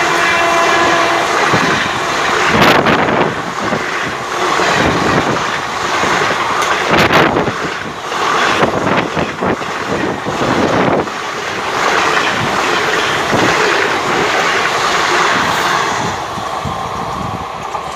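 Passenger train coaches passing close at speed: a continuous rush of wheel and air noise with repeated clatter of wheels over rail joints. The tail of a train horn blast dies away about a second in, and the noise eases slightly as the last coach goes by near the end.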